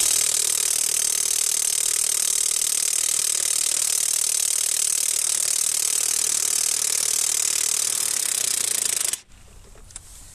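Draper Expert 20 V brushless 3/4-inch cordless impact wrench hammering steadily on a tractor wheel nut for about nine seconds, then stopping suddenly.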